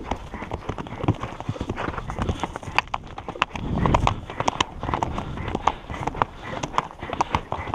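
Hooves of a ridden horse clip-clopping on a stony dirt trail at a brisk pace, heard from the saddle. A low rumble runs under the hoofbeats and swells louder about four seconds in.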